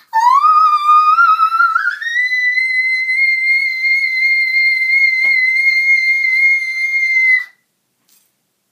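A girl's voice holding a very high note as a deliberately bad attempt in a high-note contest. The note starts wavering upward, jumps to a much higher pitch about two seconds in, holds steady and shrill, then cuts off about a second before the end.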